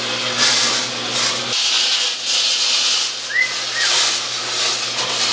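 Coffee beans roasting in a small roaster turned by a microwave motor: a steady hiss and rattle that swells and fades about once a second, over a low electric hum. A short rising chirp comes a little past the middle.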